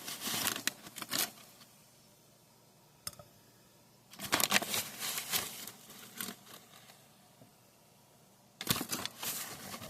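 A spoon scooping ground coffee and tipping it into a French press, three spoonfuls. Each comes as a short run of scraping and clicking, about four seconds apart.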